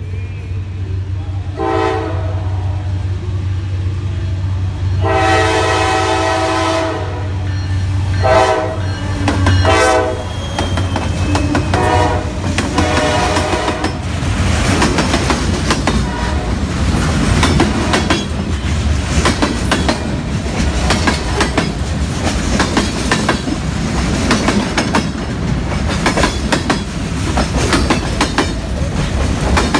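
Freight train's diesel locomotive blowing its horn in four blasts as it approaches a grade crossing, the second one long and the last two short, over the low drone of the engine. From about ten seconds in, the locomotive has passed and freight cars roll by close, with steady wheel clatter and sharp clicks from the wheels over the rails.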